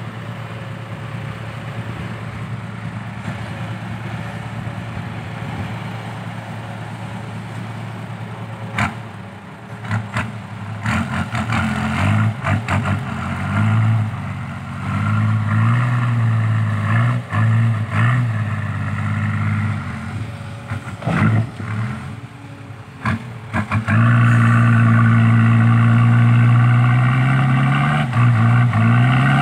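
Isuzu Deca 195 dump truck's diesel engine with new triple side exhaust pipes, running steadily at first, then revved in repeated blips from about ten seconds in. Near the end it is held at a loud, steady high rev as the truck pulls away.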